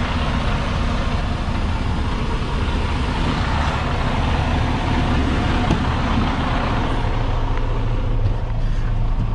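Semi-truck's diesel engine idling close by: a steady low rumble with a broad hiss over it.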